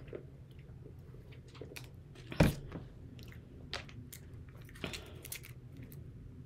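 Close-up eating noises: mouth sounds and sipping through a straw, scattered small clicks, and one louder knock about two and a half seconds in as a drink cup is set on the table. Near the end come small crinkles of a plastic packet being handled.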